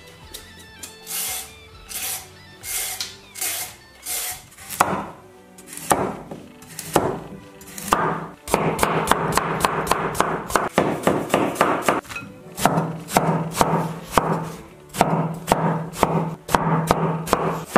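Cleaver chopping carrot and peeled eggplant on a plastic cutting board: a series of sharp knife strikes against the board, coming faster in the second half, over background music.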